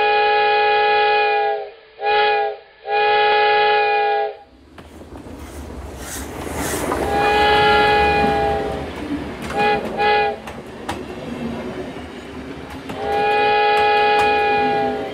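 A locomotive chime whistle blows a series of blasts: long, short, long, then a second long blast, two short toots and a final long blast. From about four and a half seconds in, the low rumble and rattle of a moving train runs underneath.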